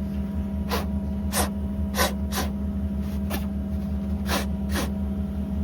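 Seven short hissing bursts of an aerosol spray can, cleaning the pins of an electrical connection, over the steady hum of an engine running nearby.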